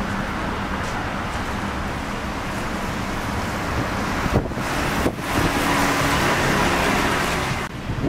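Street traffic beside a bus road: a bus engine running with tyre and road noise, and two short thumps about four and five seconds in.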